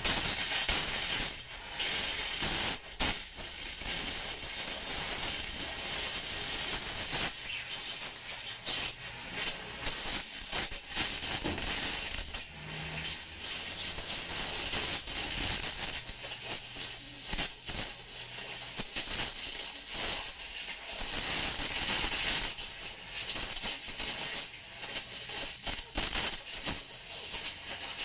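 Oxy-fuel cutting torch hissing steadily as its flame cuts through a steel floor plate, with irregular crackles and pops all through.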